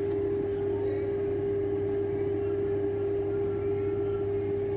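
Steady hum of the grow box's running fan: one constant mid-pitched tone over a lower drone, unchanging throughout.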